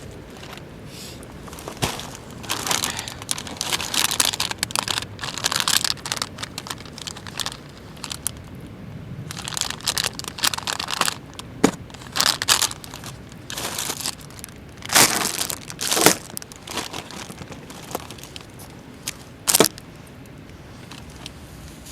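Irregular crinkling and rustling from something being handled, coming in uneven bursts, with a few sharper snaps in the second half.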